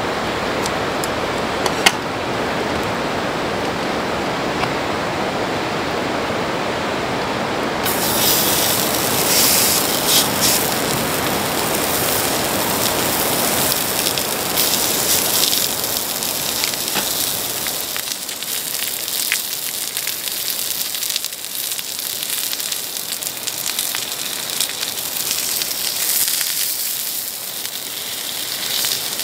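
Pork belly slabs sizzling and crackling on a hot griddle pan over a gas burner. The sizzle starts suddenly about eight seconds in, after a steady rushing hiss, and keeps going with scattered pops.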